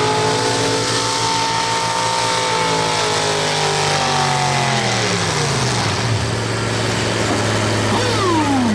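Two-wheel-drive pulling truck's engine at high revs under load, its pitch slowly sagging, then winding down steeply from about four to six seconds in and settling into a steady idle as the pull ends. A short falling sweep is heard near the end.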